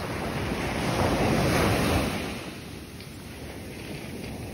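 Ocean surf breaking and washing up over the shallows, a wave surging louder about a second in and easing off after about two seconds.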